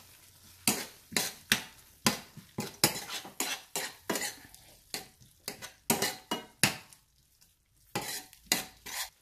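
Metal spoon stirring a thick curry in a stainless steel pan, scraping and knocking against the pan in short irregular strokes, roughly two a second, with a brief pause about seven seconds in. The curry sizzles faintly underneath.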